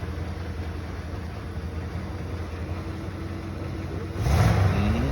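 1997 Ford F-250's engine idling steadily, freshly started for the first time after its rebuild, then revved once about four seconds in, its pitch climbing.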